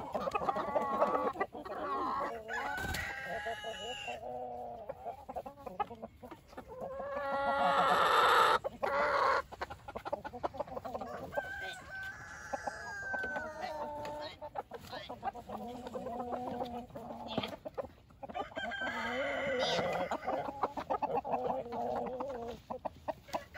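A backyard flock of hens and roosters clucking and calling constantly, with a rooster crowing loudly about eight seconds in.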